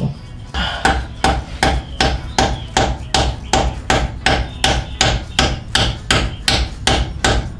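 A hammer tapping a socket to drive a Miata's pilot bearing into the crankshaft: metal-on-metal taps, light and evenly paced at about three a second.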